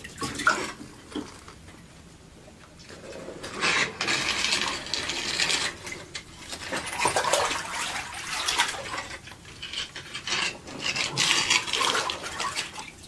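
Long-handled scoop net sweeping and sloshing through shallow water, with small knocks and clinks. It is quieter for the first few seconds, then comes as repeated swishing strokes.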